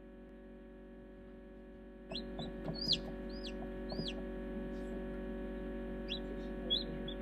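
Chicken chick peeping: a few short high peeps about two seconds in, then three longer peeps that rise and fall, and a few more short peeps near the end. Under the peeps is a steady hum that gets louder about two seconds in.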